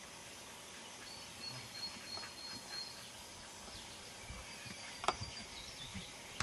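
Steady outdoor background hiss with a faint, broken high chirping a second or two in, and a sharp click about five seconds in.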